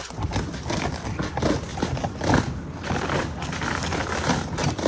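Roofers working on a roof: a steady run of irregular knocks, thumps and scraping from tools on the old roofing.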